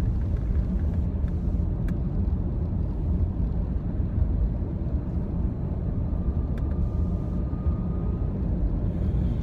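Steady low rumble of a car on the move, with a couple of faint clicks.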